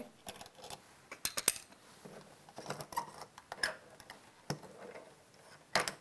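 Screwdriver backing out the long mounting screws of an old dimmer switch from its metal wall box: scattered faint metallic clicks and scrapes, with a few louder clicks near the end.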